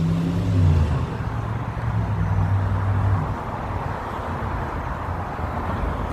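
City street traffic: a motor vehicle's engine hums close by for about the first three seconds and then fades into steady traffic noise.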